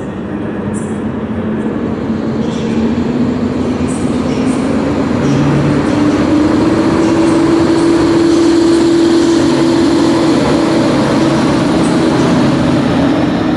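Electric train running past close by, its traction motors whining in a tone that rises slowly through the first half and then holds steady. The train grows louder toward the middle and eases slightly near the end.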